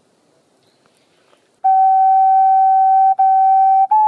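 Near silence, then about one and a half seconds in background music comes in: a flute-like instrument holding long, steady notes with brief breaks between them, one slightly higher note near the end.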